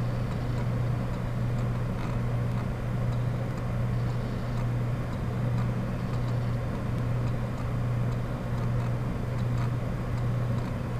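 Steady low hum over a constant hiss, the background noise of the recording setup, with a few faint clicks.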